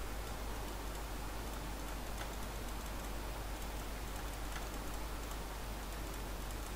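Faint, scattered computer mouse clicks over a steady microphone hiss and low hum.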